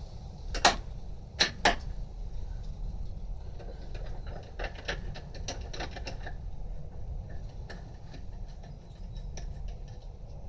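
Socket ratchet on an extension bar undoing the plenum bolts. A few sharp metal clinks come in the first two seconds, then a run of light quick ratchet clicks in the middle, tailing off into scattered ticks.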